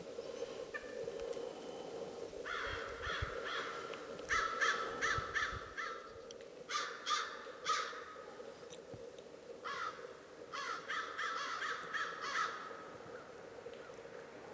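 Bald eagle calling: several bouts of rapid, high-pitched piping notes, each about a second long, over a faint steady hum.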